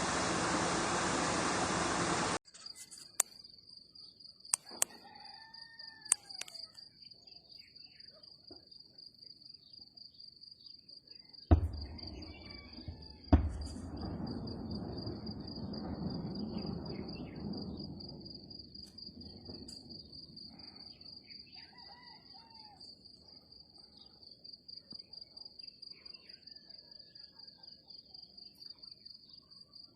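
Crickets chirring steadily, with a few bird chirps. About eleven seconds in come two sharp, loud gunfire bangs about two seconds apart, followed by several seconds of low rumbling. The opening two seconds hold a loud even noise that cuts off suddenly.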